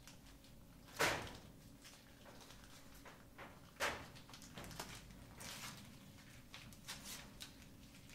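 Small red passport booklets being handled: two sharp knocks, the louder about a second in and another just before four seconds, with softer rustling and ticking of pages in between.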